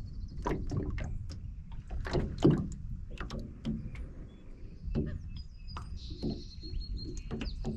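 Small waves slapping against an aluminium boat's hull, heard as a string of irregular knocks and clicks over a low wind rumble. A bird sings faintly in the second half.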